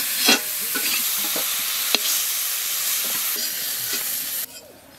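Cauliflower florets sizzling in hot mustard oil in a metal kadai as they are lifted out with a long metal ladle, with a few sharp clinks of the ladle against the pan. The sizzle cuts off suddenly near the end.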